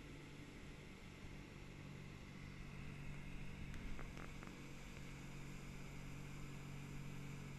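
Motorboat engine running steadily under way, a low hum over the hiss of rushing water and wake, with a few faint clicks about four seconds in.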